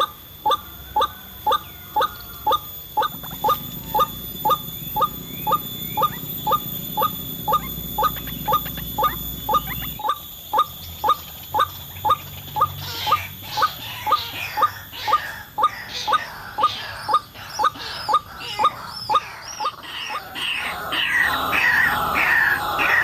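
White-breasted waterhen call, the monotone ruak-ruak lure call: short harsh notes repeated steadily at about two a second. About halfway through, a busier, higher chattering joins in and grows louder toward the end.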